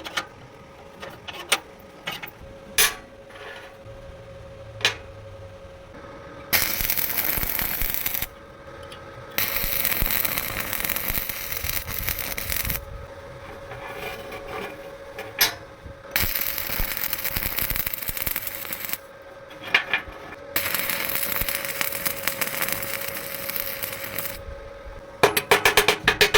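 Metal fabrication work: a few sharp metallic taps, then four bursts of harsh hissing noise, each two to four seconds long, from steel being worked with a power tool. A fast run of rapid strikes begins near the end.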